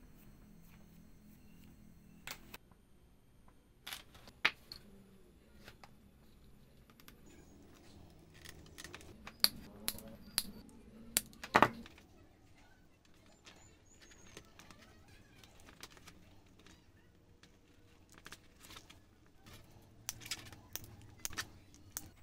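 Small wooden toy parts clicking and tapping as they are handled and pinned together with a toothpick. Near the end comes a quick cluster of sharp clicks as side cutters snip the toothpick pins.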